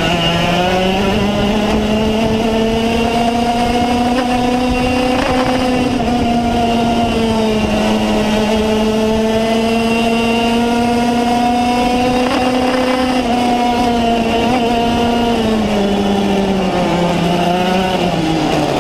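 Racing kart engine heard from an onboard camera on the kart. It climbs in pitch over the first few seconds as the kart accelerates, holds high and steady at full throttle, then the revs drop over the last few seconds as the kart slows.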